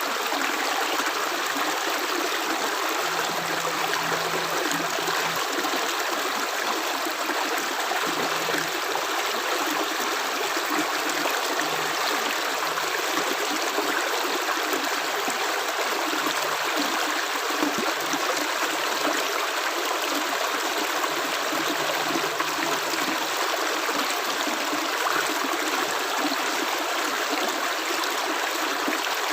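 Running water of a stream, a steady even rush with no separate drops standing out.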